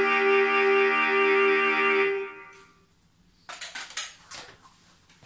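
Soprano saxophone holding the final long note of a ballad, which dies away about two seconds in. After a short silence come a few sharp clicks and knocks as the saxophone is set down on its floor stand.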